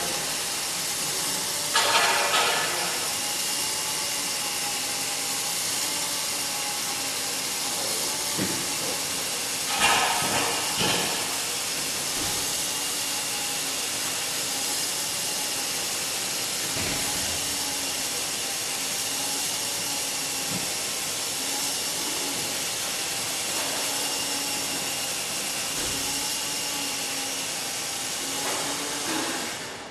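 Steady hissing with a faint whine from the robot's telescoping-leg mechanism as the legs retract and the body lowers, with two louder bursts of noise about two and ten seconds in. The noise cuts off near the end.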